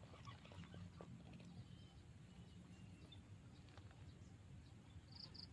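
Near silence: faint outdoor ambience with a low rumble and scattered small clicks. A bird gives a quick run of about four high chirps near the end.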